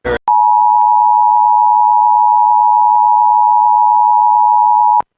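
Emergency Alert System attention signal: a loud, steady two-tone alarm of about 853 and 960 Hz held for nearly five seconds, then cut off abruptly. A brief burst of noise comes just before it, right at the start.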